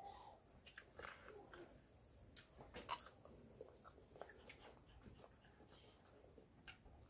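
Quiet eating sounds: a metal spoon clicking and scraping in a plastic bowl, and chewing, as a scatter of small clicks with the loudest about three seconds in.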